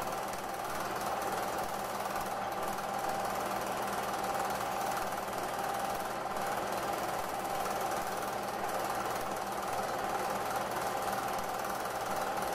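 Film projector running steadily, its shutter and pull-down claw making a rapid, even mechanical clatter with a steady hum underneath.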